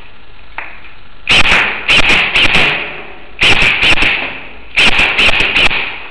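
Airsoft gun firing three quick strings of four to six sharp shots, each string lasting about a second.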